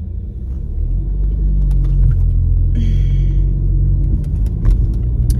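Low, steady car rumble that grows louder about a second in, with a short hiss near the middle and a few light clicks.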